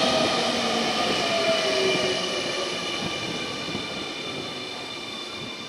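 Keio 9000 series electric train running into the station and slowing, its motors' whine sliding down in pitch over the rumble of the cars as the sound fades.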